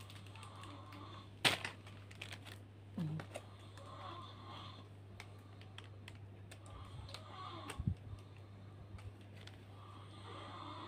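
Faint handling noises as a cloth is pulled out and unfolded: light rustling with scattered small clicks and taps, one sharper click about a second and a half in, over a steady low hum.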